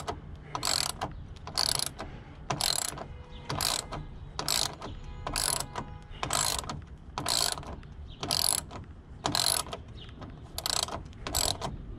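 Hand ratchet with an 8 mm socket clicking in short swings, about one stroke a second, as it backs out the bolts holding a car's front radiator-support panel.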